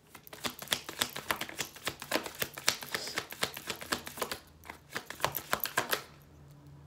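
A deck of tarot cards being shuffled by hand in an overhand shuffle: quick runs of cards slapping and clicking against each other. There is a short break a little past four seconds in, and the shuffling dies down near the end.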